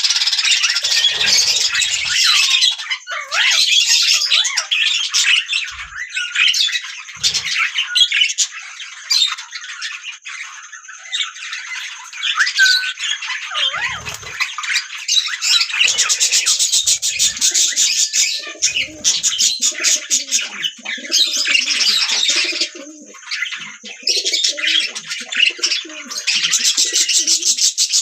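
Budgerigars chirping and warbling without a break, many quick overlapping notes and short pitch glides, with spells of very rapid chattering and a softer, lower warble running underneath in the second half.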